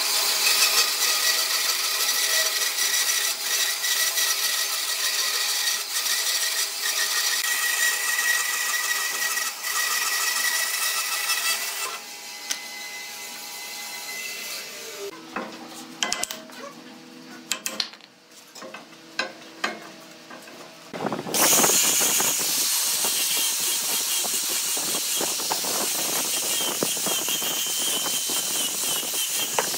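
Band saw cutting through a block of dry wood, running steadily for about twelve seconds. Then a quieter stretch with scattered knocks, until an angle grinder with a sanding pad starts up about 21 seconds in and sands the wood with a steady whine.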